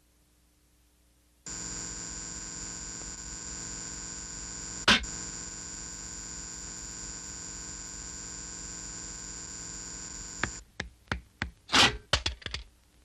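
A steady buzzing drone made of many held tones starts about a second and a half in, with one sharp knock in the middle. It cuts off suddenly and gives way to a quick, irregular run of knocks and clatters.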